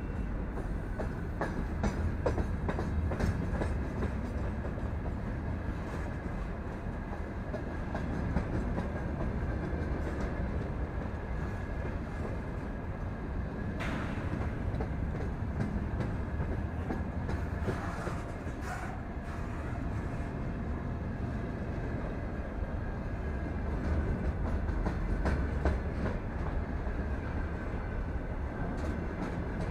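Open gondola wagons of a freight train rolling past close by: a steady heavy rumble of steel wheels on rail, with scattered clicks and knocks from the wheelsets and a faint steady high ringing tone.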